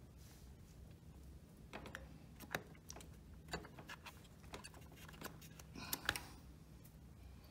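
A few faint, light clicks and taps, scattered and irregular, as a hand handles the oil filter cover and bolts on the quad's engine casing, over a low steady hum.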